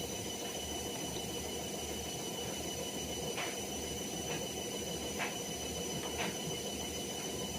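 Steady background hiss with a thin, steady high-pitched whine, and a few faint soft clicks spread through the middle.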